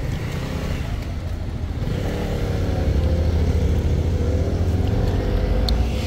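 Street traffic: a motor vehicle's engine swells louder about two seconds in, its note rising as it accelerates, over a steady low traffic rumble.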